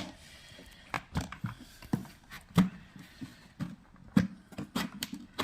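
Irregular clicks and light knocks from the plastic parts of an opened Henry vacuum cleaner's head being handled.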